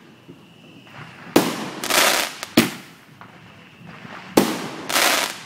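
Fireworks exploding: five loud bangs, starting about a second and a half in. Two of them are longer, rushing reports, and one sharp crack comes soon after the second.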